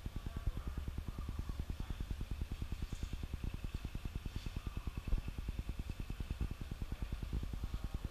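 A machine running with a fast, even low pulsing, several pulses a second, and one sharper knock about five seconds in.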